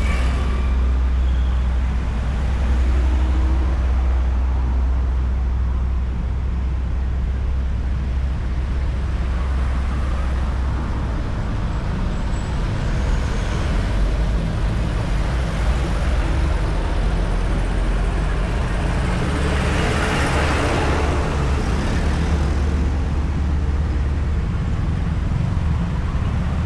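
Highway traffic: a steady low rumble of engines and tyres on the road, with one vehicle passing close about twenty seconds in, its tyre noise swelling and fading away.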